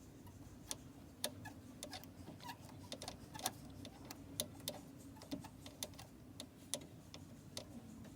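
Irregular light clicks and taps, about one or two a second, from hands and tools working on the gear-change cable's ball/socket joint end, over a faint low hum.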